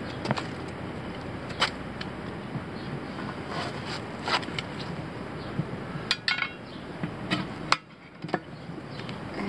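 Steel tire iron clinking and scraping against a steel wheel rim as the tire bead is pried by hand: several separate sharp metallic clinks, the loudest near the end.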